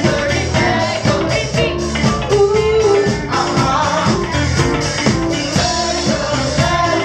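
Live band playing upbeat dance music: a woman singing into a microphone over electric bass, keyboards and a steady beat.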